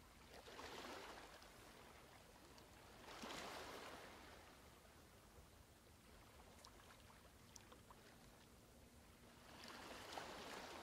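Near silence: faint room tone with three soft swells of hiss and a few light clicks.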